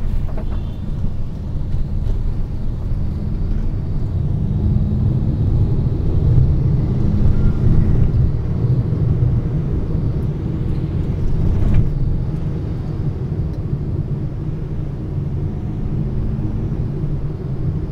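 Steady low rumble of a moving road vehicle heard from on board, with an engine note that rises and falls a few times.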